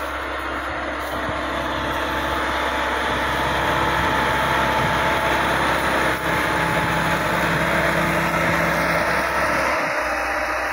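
Massey Ferguson 385 tractor's four-cylinder diesel engine running steadily under load while pulling a disc harrow through the field, getting somewhat louder about three seconds in.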